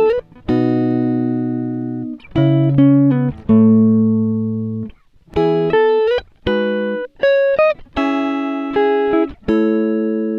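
Background music: plucked guitar-like notes and chords, each ringing and fading before the next.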